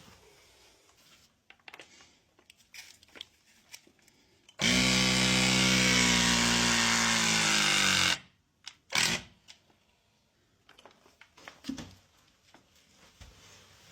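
A handheld power tool runs at speed for about three and a half seconds, starting suddenly and stopping suddenly, with scattered taps and clicks of handling before and after.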